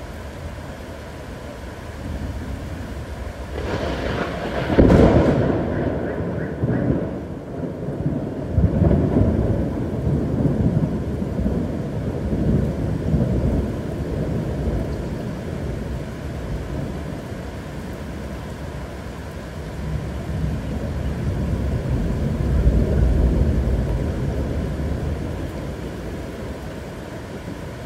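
Thunder over steady heavy rain: a sharp thunderclap about four seconds in, the loudest moment, trails into long rumbling, and a second low rumble swells up and fades near the end.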